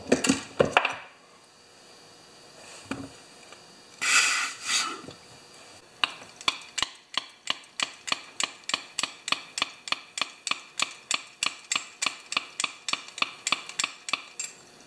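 Hand pressure pump with a gauge being squeezed over and over, clicking about four times a second from about six seconds in, to pressurize a Homelite XP1020 chainsaw's sealed crankcase for a leak test. Before that come a few clatters of metal parts being handled in the first second and a brief rustle about four seconds in.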